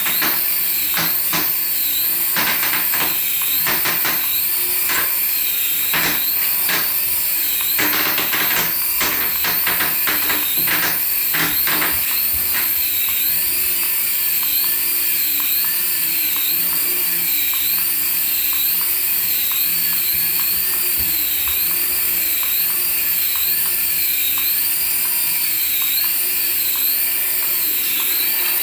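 High-pitched whine of a toy remote-control vehicle's small electric motor, its pitch wavering up and down about once a second. Scattered clicks and rattles come through in the first half.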